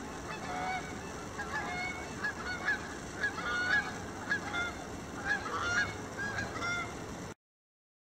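Geese honking, many short calls overlapping and repeating at an uneven pace. The sound cuts off abruptly near the end.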